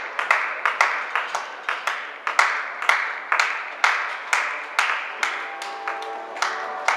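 Music with a sharp, clap-like percussive beat, several hits a second in a syncopated pattern, and a faint held melody coming in over the second half.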